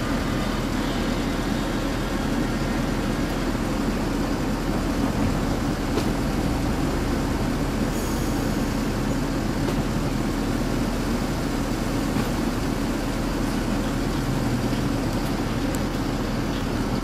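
Street trams running on street-embedded rails amid steady traffic noise, an even, continuous sound heaviest in the low range, with a few faint clicks.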